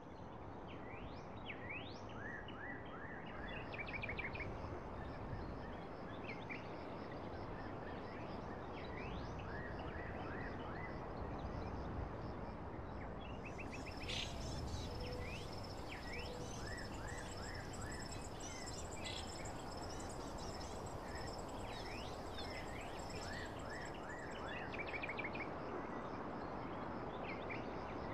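Birds chirping, many short rising and falling calls, over a steady background hiss; a steady high-pitched buzz joins about halfway through.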